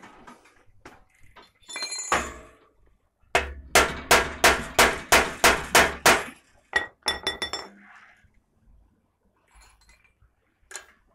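Metal-on-metal hammer strikes on a bicycle's crank cotter pin: one ringing blow, then a quick run of about ten clinking blows at about three a second and a few more, knocking a cotter pin that has worked loose back in tight.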